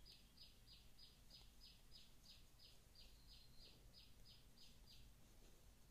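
Near silence with a faint, regular high chirping, about three short chirps a second, that stops about five seconds in.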